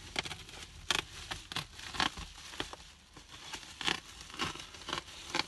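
Sheet of silver bubble-foil insulation crinkling and crackling as it is handled and pressed against a window, in a run of irregular sharp crackles.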